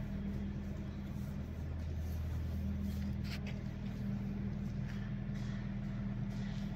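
Organic fertilizer plant machinery running with a steady low hum, with a brief scrape or clatter about three seconds in.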